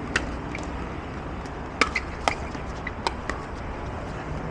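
Pickleball paddles hitting a hard plastic ball in a rally: a series of short, sharp pops, about six of them and irregularly spaced, bunched together between about two and three seconds in.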